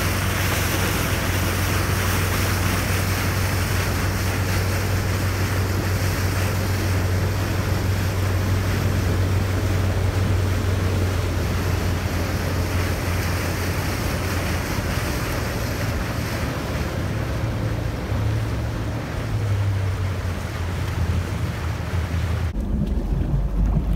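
Motorboat under way: the engine hums steadily, with water rushing along the hull and wind buffeting the microphone. Near the end the hiss of water and wind drops away abruptly, leaving a lower rumble.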